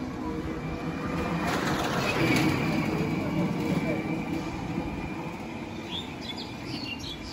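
A vehicle's rumble rises and fades over a few seconds, loudest about two to three seconds in. Birds chirp near the end.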